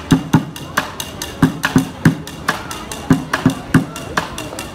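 Drumsticks beating a fast rhythm on a plastic yogurt bucket used as a drum: deep hollow thumps from the bucket with sharp stick clicks in between.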